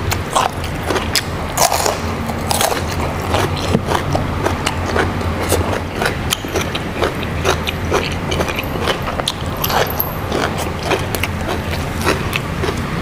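A person biting and chewing food close to the microphone, with many irregular crisp mouth clicks over a steady low hum.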